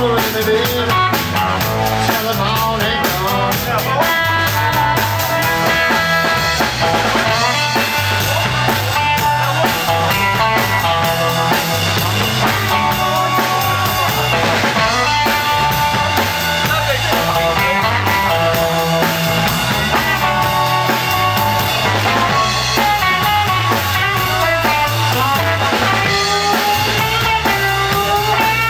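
Live 1950s-style Chicago blues band playing: electric guitars over a steady drum kit shuffle, with amplified blues harmonica wailing in the opening seconds.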